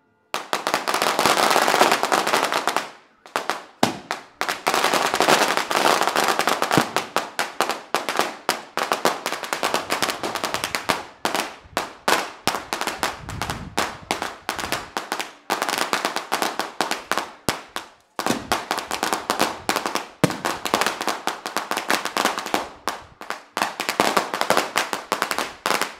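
Firecracker strings (ametralladora rolls) going off: a dense, rapid crackle of many small bangs. It breaks off briefly about three seconds in and again about eighteen seconds in.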